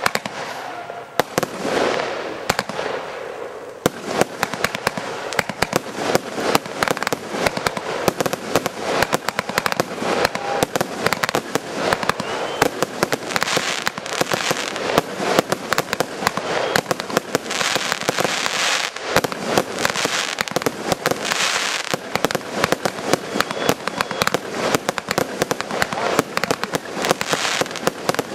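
Fireworks display going off in a rapid, continuous barrage of many sharp bangs, with dense crackling stretches. It thickens about four seconds in and stays dense to the end.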